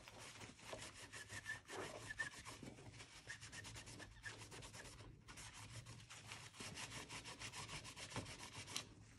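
Faint rubbing of an alcohol-damp paper towel scrubbed back and forth over the metal lid of an Intel Core i7 10th-gen CPU, cleaning it off in its socket.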